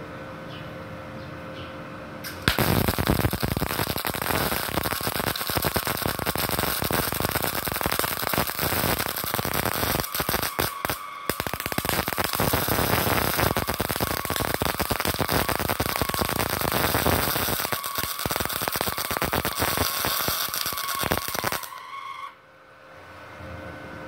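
MIG welding arc crackling steadily as a bead is laid: a 450-watt gasless (flux-core) MIG welder run with CO2 shielding gas at its maximum setting of about 130 amps. The arc strikes about two and a half seconds in and cuts off abruptly a couple of seconds before the end, with a steady machine hum before and after.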